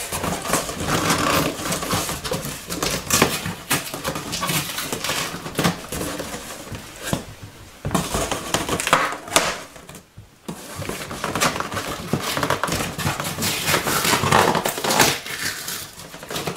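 Cardboard scraping, rustling and crunching as hands work at the flaps of a large taped cardboard shipping box to get at the box inside. It comes in irregular bursts, with a short lull about ten seconds in.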